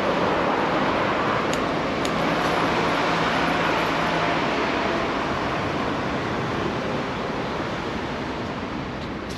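Steady rush of wind on the microphone mixed with city road traffic, heard from a moving bicycle. A low engine hum sits under it and stops about four seconds in, and a few faint clicks come through.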